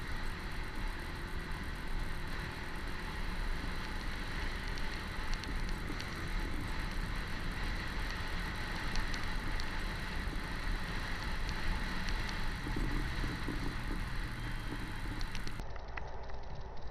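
Steady road and wind noise with a low engine rumble from a small motorcycle being ridden, then an abrupt change to a quieter recording near the end.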